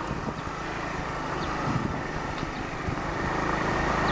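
Motorbike engine running at a steady riding speed, with wind rushing over the microphone; it gets a little louder near the end.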